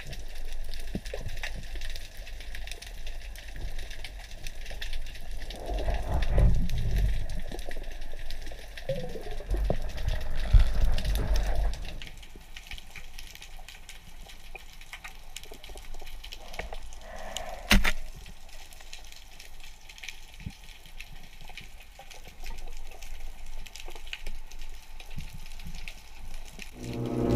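Underwater ambience in the sea: a low rumble of moving water with fine scattered crackling. The rumble swells twice, about 6 and 10 seconds in, and there is one sharp click near 18 seconds.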